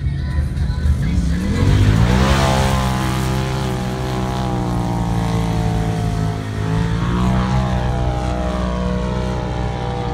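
Side-by-side UTV engine revving up hard about two seconds in, then holding at high revs with a couple of short dips.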